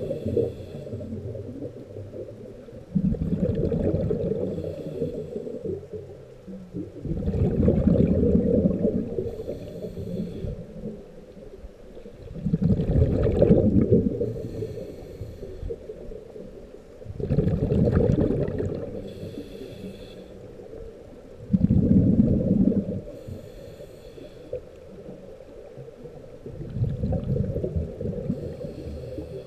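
Underwater sound picked up through an underwater camera: low rushing water swells up and fades about every four to five seconds. Fainter, brief high-pitched bursts come in between the swells.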